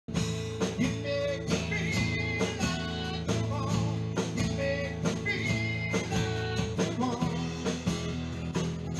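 Live acoustic guitar strummed in a steady rhythm, about two strums a second, amplified through a PA, with a higher melody line held and bent over it.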